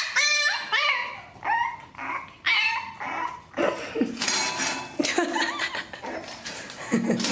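A dog yelping and whining: a string of high cries that bend up and down in pitch, about one a second, followed by rougher, noisier sounds.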